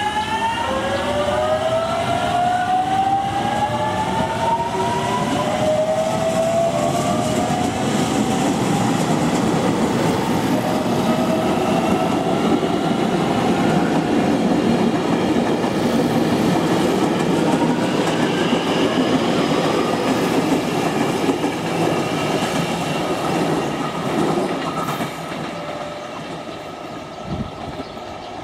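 JR Kyushu 813 series electric train pulling away, its traction motors whining upward in pitch over the first few seconds, then running steadily along the rails, the sound falling off near the end.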